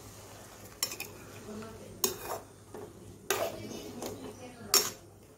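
Metal slotted spatula stirring fish pieces in watery curry in a kadai, scraping the pan and knocking against its rim four times, about a second apart.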